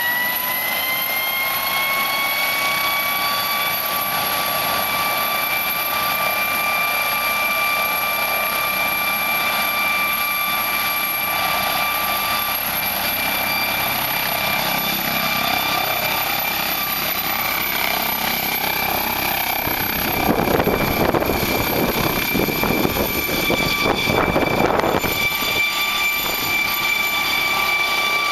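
MD Explorer twin-turbine helicopter running on the ground with a steady high turbine whine under the rotor noise. About twenty seconds in a rough rush of rotor noise swells and grows louder as it powers up and lifts off.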